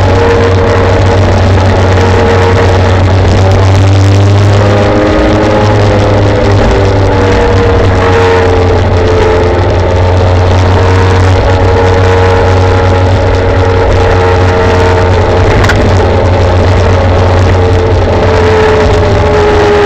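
Steady loud rumble of traffic and road noise from a camera mounted low on a moving electric scooter, with a humming drone that drifts slowly in pitch and drops near the end.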